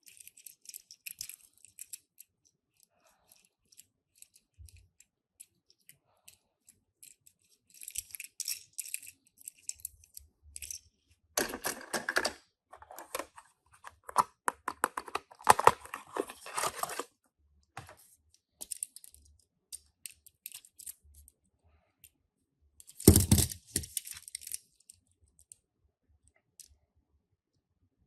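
Tomica die-cast mini cars and their packaging being handled: scattered small clicks and rattles with bursts of rustling and tearing, loudest in two spells in the middle and in one late burst with a dull thump.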